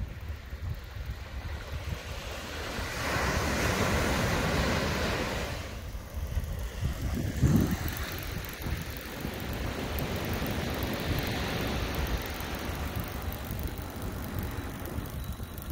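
Wind on the microphone over the wash of surf breaking on a sandy beach, with a louder stretch of rushing noise about three to five seconds in and a short thump a little after seven seconds.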